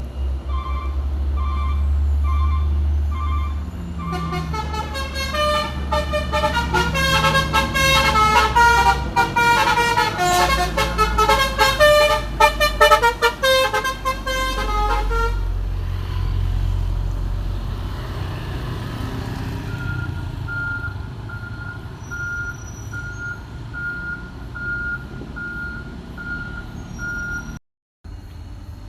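A truck's 'telolet' Basuri V3 multi-tone air horn plays a long tune of changing notes for about ten seconds over the low rumble of the Hino 500's diesel engine. Short repeated beeps come before the tune, and a single beep repeating about once a second follows it.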